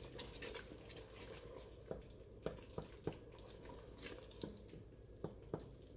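A wooden spoon stirring thick tomato sauce in an enamelled cast-iron pot. The sound is faint and wet, broken by a handful of small taps of the spoon against the pot.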